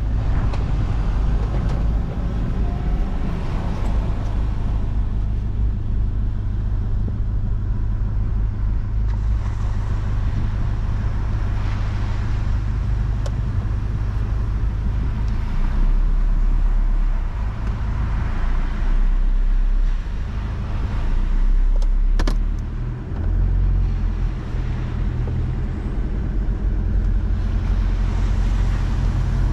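Toyota Prado's engine and tyres heard from inside the cabin as it pulls away and drives over soft beach sand: a steady low drone whose note shifts a few times in the second half. A single sharp click sounds about two-thirds of the way through.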